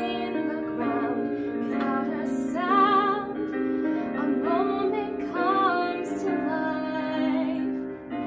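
A woman singing a musical-theatre song solo, with vibrato on the held notes, over instrumental accompaniment.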